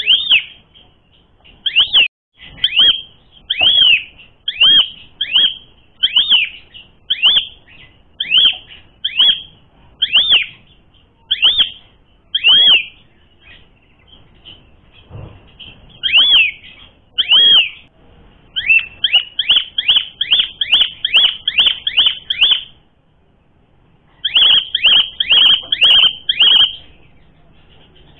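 Asian pied starling (jalak suren) calling: a loud, sharp, clear note with a quick downward bend, repeated about once a second, then faster runs of about three notes a second broken by short pauses.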